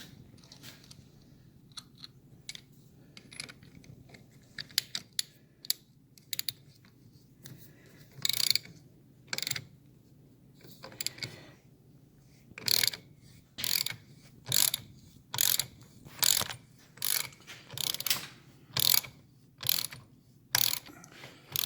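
Ratchet wrench clicking as it runs down the center nut on a Triumph Bonneville's clutch hub. Scattered light clicks at first, then from about eight seconds in a run of regular strokes, a little more than one a second.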